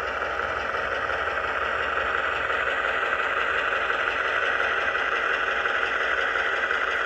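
HO scale model diesel locomotive moving slowly along the track, with a steady diesel-engine drone.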